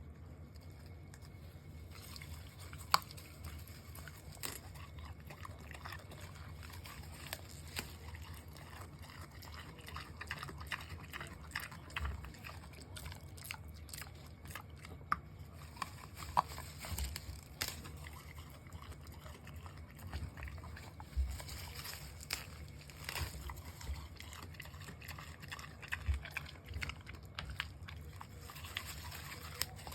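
Micro pig biting and chewing daikon radish: irregular wet crunches and clicks with chewing sounds, a few sharper snaps standing out, over a steady low hum.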